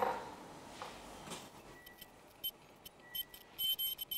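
A knock at the start, then a medical gown sewing machine running on the fabric. A faint steady high tone comes in about halfway, and short high-pitched bursts come and go several times.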